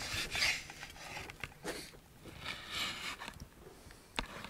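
Knife slicing through slabs of salo (cured pork fat) on a wooden cutting board: a few scraping cuts, then a sharp knock of the blade on the board about four seconds in.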